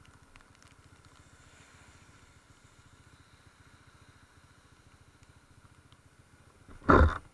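Honda CB150 Invicta's single-cylinder engine running faintly at a steady, even low beat. About seven seconds in, a brief loud burst breaks in over it.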